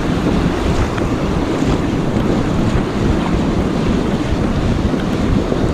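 Wind blowing across the microphone over breaking ocean surf, a steady heavy rush of noise.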